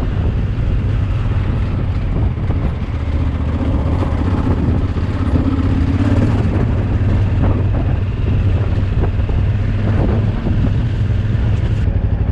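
Motorcycle engine running steadily while riding a gravel mountain track, a continuous low drone.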